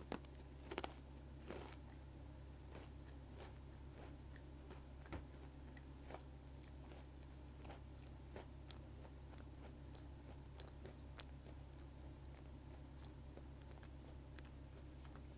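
Almond Pocky, chocolate-coated biscuit sticks with almonds, being bitten and chewed close to the microphone: a few sharp crisp bites in the first two seconds, then softer, scattered crunching.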